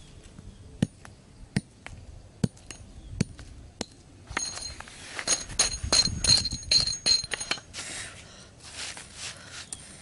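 Small hatchet striking bamboo: several separate knocks about once a second, then from about four seconds in a quicker run of blows with bright metallic clinking and ringing.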